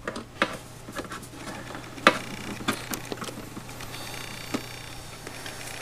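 Clicks and knocks from handling as a power cord is plugged into an LCD monitor: a few sharp clicks spread about a second apart, over a faint steady low hum.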